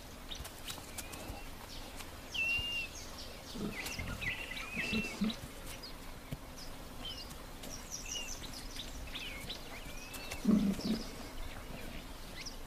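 Wild birds chirping in short, curving calls throughout, with a few low grunts from giant forest hogs snuffling at a buffalo skull, about four to five seconds in and again, loudest, near ten and a half seconds.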